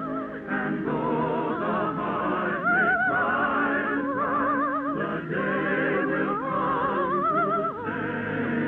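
Operetta music from an old radio recording: a high operatic voice sings with wide vibrato over an orchestra. The sound is dull and band-limited, with nothing above about 4 kHz.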